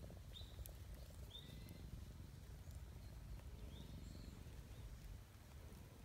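Three short, high chirps of a small bird, faint, over a low outdoor rumble.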